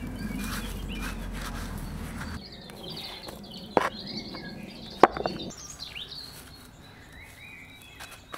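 Small birds chirping and singing, with two sharp knocks, about four and five seconds in, as flat stones and clods of earth are lifted and set down.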